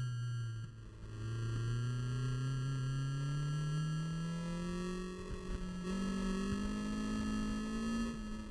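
A motor's pitched drone that drops in pitch at the start, then climbs slowly and steadily for about eight seconds, with a small jump up in pitch about six seconds in.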